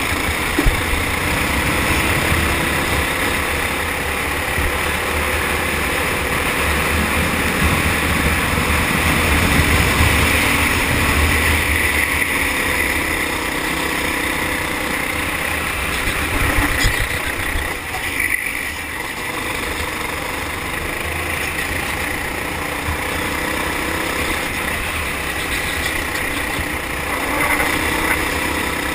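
Four-stroke kart engine heard from on board at racing speed, its note rising and falling with the throttle through the corners, easing off briefly about two-thirds of the way through, over a heavy low rumble.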